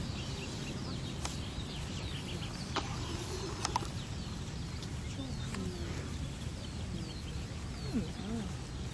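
Small birds chirping over and over, short high falling notes, above a steady low rumble, with a few faint clicks.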